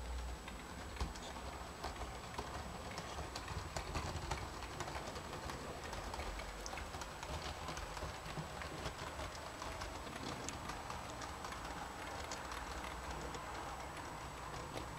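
Model railway steam locomotive and its train running on the layout's track: a stream of small irregular clicks from the wheels passing over rail joints and turnouts, over a low steady rumble.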